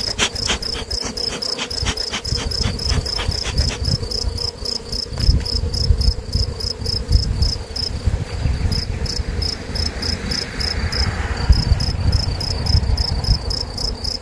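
Cricket chirping in a steady rhythm of about five chirps a second, over a low rumble of wind on the microphone and a faint steady hum from the honeybees of an opened hive.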